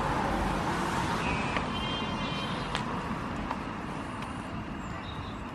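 Steady outdoor background noise, like distant traffic, slowly fading, with a few short high chirps between about one and two and a half seconds in.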